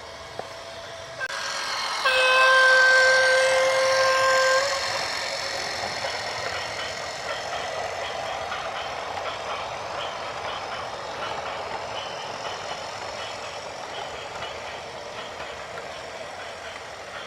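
A vehicle horn sounds one loud, steady blast lasting about two and a half seconds, over a rushing noise that starts just before it and fades slowly afterwards.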